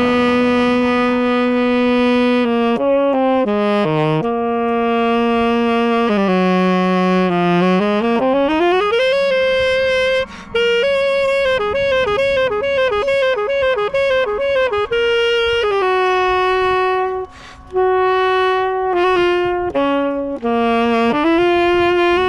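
A tenor saxophone playing a solo right at the microphone: long held notes, a slow slide up to a higher note, then a run of quick wavering notes, with two short breaks for breath.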